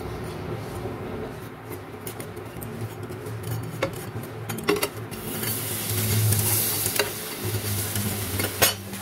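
A table knife scraping butter across toast and clicking against a nonstick pan, then a spatula turning a buttered bread slice. From about five seconds in, butter sizzles as the buttered side meets the hot pan.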